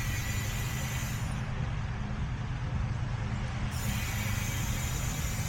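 Steady hissing noise with a low, even hum beneath it.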